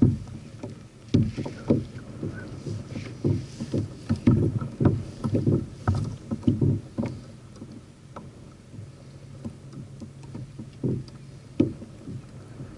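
Irregular dull knocks and bumps on a plastic Hobie kayak hull while a just-landed fish is handled and unhooked aboard. The knocks thin out after about eight seconds.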